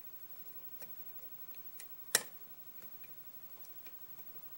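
Light metallic clicks of a lock pick working the pins inside an antique four-pin Yale push padlock, a few scattered ticks with one sharper click about two seconds in.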